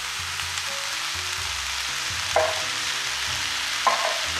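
Rice and tomato base sizzling steadily in a hot frying pan as drained canned pigeon peas are poured in, with two short knocks about a second and a half apart.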